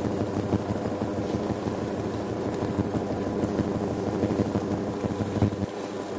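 Beaten egg frying in a greased nonstick pan: a steady, dense crackling sizzle with a steady hum underneath.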